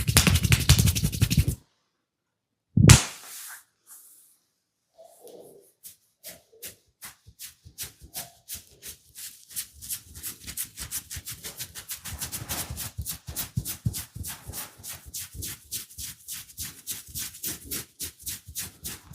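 Rapid rhythmic massage strikes, hands tapping and slapping on the body at about five a second, with one single loud slap after a brief dead-silent gap. The tapping starts faint a few seconds in and grows steadily louder.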